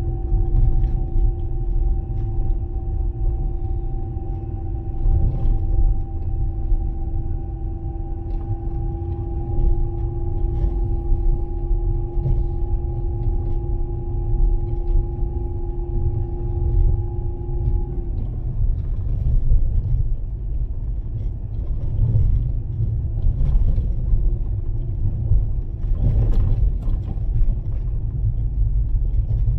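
Fiat Panda 4x4 driving on a packed-snow road: a steady low rumble of engine and tyres, with an even engine hum that drops away about eighteen seconds in.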